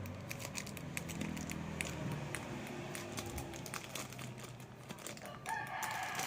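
Plastic packaging crinkling with scattered light clicks as small parts of a car alarm kit are handled. Near the end a steady pitched sound comes in.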